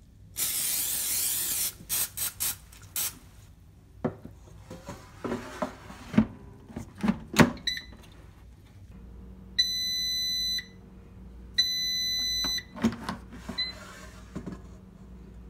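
Power AirFryer being loaded and started: a loud hiss for about a second, then clicks and clattering knocks as the basket is handled and slid in. Short button beeps follow, the fan starts a steady hum, and the fryer gives two long electronic beeps about two seconds apart.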